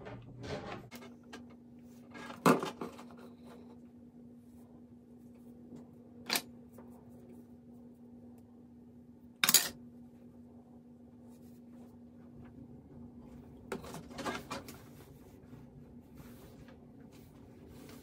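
Handling noise from a flat iron being worked through hair: three sharp clicks a few seconds apart, the loudest near the middle, then a short cluster of knocks about three-quarters through, over a steady low hum.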